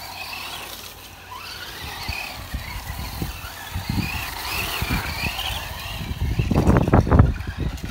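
Tamiya TT-02B electric RC buggy driving on loose gravel: the electric motor whines, rising and falling with the throttle, over the crunch of the tyres in the gravel, which gets louder near the end.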